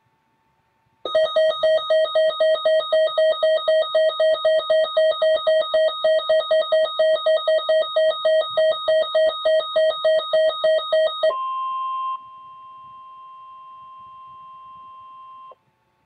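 Weather alert radio sounding its alarm for a severe thunderstorm warning: a rapidly pulsing electronic beep, about four pulses a second, for about ten seconds. It then gives way to a steady single tone, the broadcast warning alarm tone, which drops in level about a second later and cuts off shortly before the end.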